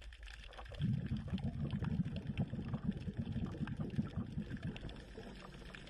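Underwater bubbling: a dense run of low gurgles starting about a second in and easing off near the end.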